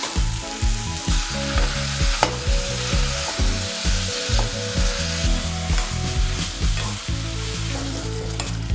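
Button mushrooms sizzling in hot oil and butter in a pan while a wooden spatula stirs them, its strokes sounding about twice a second over the steady hiss of the frying.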